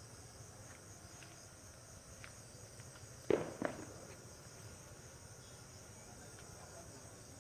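Steady high-pitched insect chirring, crickets or cicadas. About three seconds in come two sharp knocks close together, and a few faint clicks are scattered through.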